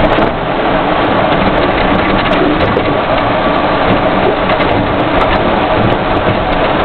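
Loud, steady cab noise of a military convoy vehicle driving on a gravel road: engine and tyre noise with scattered clicks and rattles.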